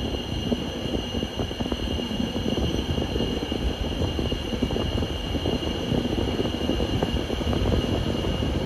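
Running noise of a Eurocity passenger coach heard from on board: wheels rumbling steadily on the rails with a dense clatter, and a thin steady whine above.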